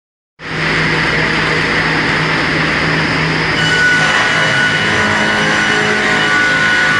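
Single-shaft multi-slicing machine running: a steady, loud mechanical din over a low hum, joined about three and a half seconds in by high, steady whining tones.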